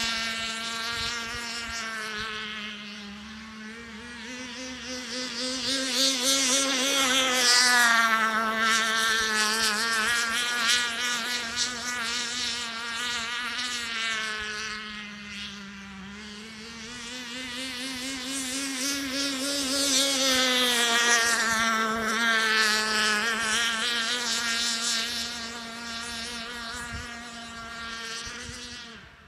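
K&B 11cc (.67 cu in) two-stroke glow outboard on an RC tunnel-hull boat running, a high-pitched buzzing whine. It swells and fades twice, its pitch rising and falling, as the boat makes passes.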